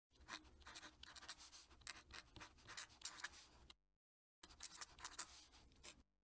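Fountain pen nib scratching across paper in quick cursive strokes, in two runs with a short break about two-thirds of the way through as the pen lifts between words. Faint.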